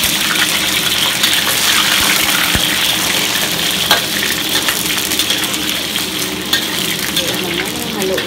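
Sweet potato wedges frying in hot oil in a wok, sizzling steadily, while a metal spatula stirs them and scrapes against the wok, with a few sharp clicks of the spatula on the pan.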